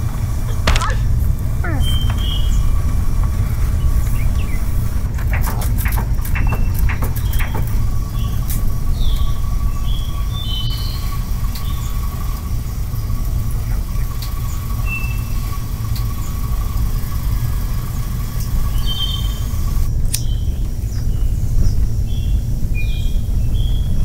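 Steady low rumble of a truck driving along a rough track. Short bird chirps sound over it, and there are a few knocks and clicks about five to eight seconds in.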